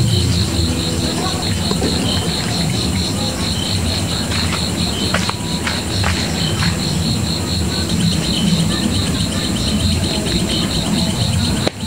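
Crickets chirring steadily in a fast pulsing trill over the crackle of a wood campfire, with a few sharp snaps from the burning sticks about halfway through.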